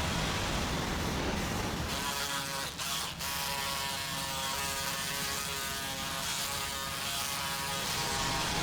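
Machine noise: a rumble for the first couple of seconds, then a steady motor buzz that holds to the end.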